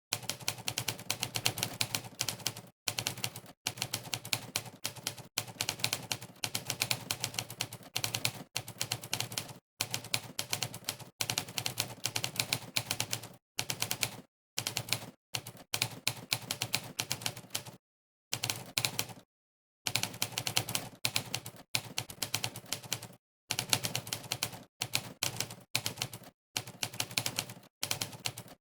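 Typewriter keystroke sound effects from Monkeytype's 'typewriter' sound setting, one clack played for each key pressed: fast, continuous runs of clacks broken by short gaps of dead silence where typing pauses.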